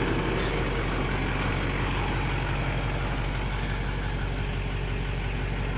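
2006 Chevrolet pickup's Duramax turbo-diesel V8 idling steadily.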